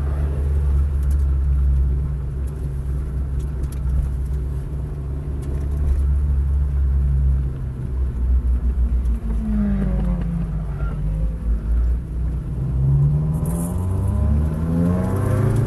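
Car engine heard from inside the cabin of an Acura, with a steady low drone at first and then a climbing note as it accelerates, rising in steps over the last few seconds.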